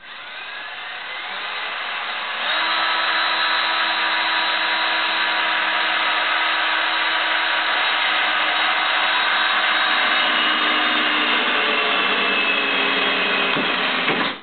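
An electric motor spins up with a rising whine, gets louder about two and a half seconds in, runs at a steady speed for about twelve seconds, then stops just before the end.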